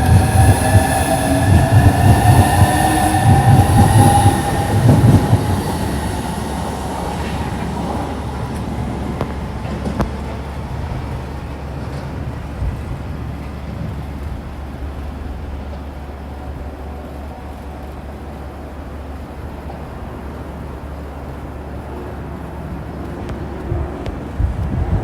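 Electric high-speed train moving off, its traction motors giving a rising whine over wheel rumble and knocks for about five seconds. The train then fades to a steady low rumble.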